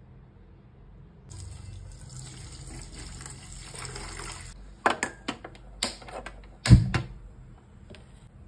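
Water poured from a steel vessel into a steel pot of cauliflower florets, a splashing stream lasting about three seconds. Then come a few sharp clanks and knocks, the loudest a heavy clunk about two-thirds of the way in.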